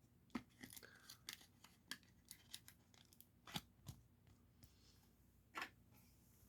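Faint, scattered clicks and rustles of trading cards and plastic card sleeves and holders being handled.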